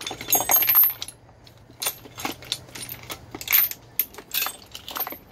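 Sharp metallic clinks and clanks of the hoist chain and hooks as the Ford Focus engine is lowered into place, the loudest about half a second to a second in. A low steady hum runs underneath and stops about four seconds in.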